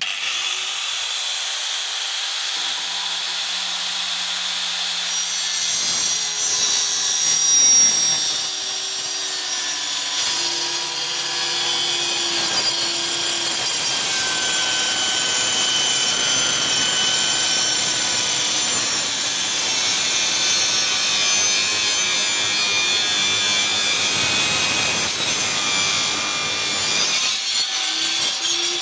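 Angle grinder rigged as a DIY circular saw, running and cutting through wood. Its motor pitch sags a little under load partway through.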